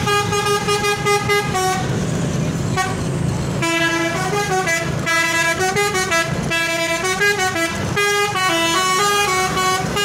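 Telolet multi-tone bus horn sounding over traffic noise: a held chord, then after a break of about two seconds of engine and road rumble, a tune of short notes stepping up and down.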